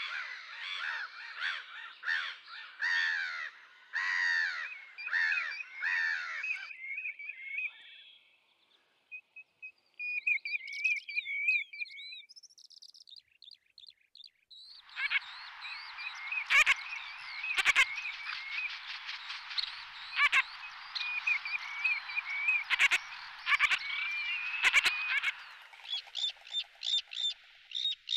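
Waterbirds calling in changing stretches: a dense run of repeated harsh calls for the first several seconds, a few thin whistled notes, then a busy chattering flock with sharp clicks through the middle, and quick repeated short calls near the end.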